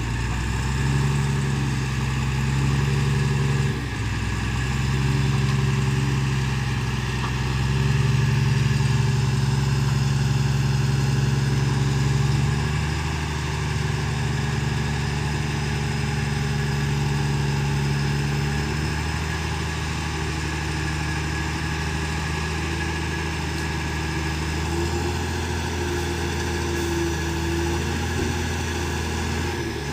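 Tata tipper truck's diesel engine running steadily while the hydraulic hoist raises the loaded body to tip out wet soil. The engine note shifts in pitch and level a few times, with a slight rise near the end.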